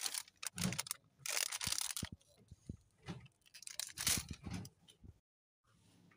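Plastic ice cream wrappers crinkling and cups clattering as hands rummage through a freezer, in irregular bursts with clicks. The sound cuts out briefly about five seconds in.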